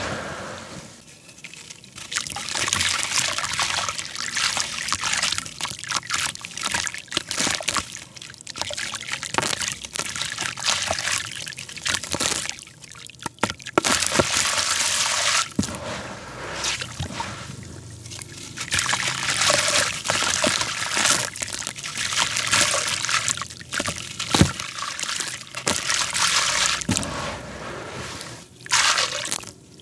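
Hands working wet crumbled black concrete in a shallow basin of water. They swish and rub through the gritty sludge and squeeze handfuls, so water trickles and drips back. Irregular strokes come with many small sharp gritty crunches.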